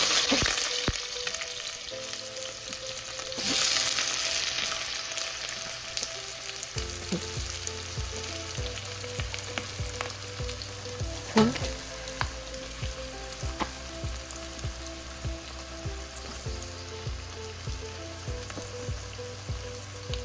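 Sliced onions hitting hot oil in a pan on high flame, sizzling loudly at once. A second surge of sizzle comes a few seconds in, then a steady frying sizzle with scattered clicks and a sharp knock near the middle.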